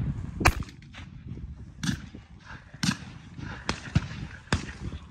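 Five shotgun shots, irregularly spaced roughly a second apart, each a sharp crack.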